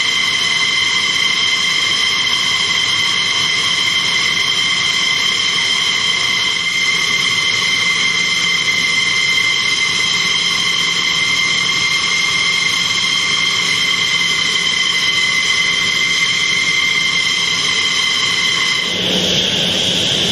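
Jet fighter's turbine engine running steadily on the ground, a high whine holding at several fixed pitches. Near the end the whine shifts and a rushing noise comes in.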